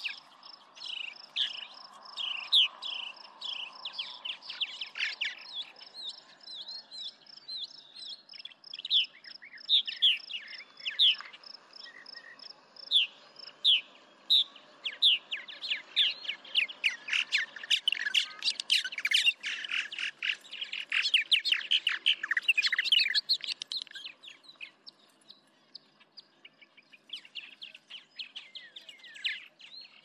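Several songbirds chirping and singing, with a fast high pulsing trill in the first few seconds and a dense stretch of overlapping chirps in the middle.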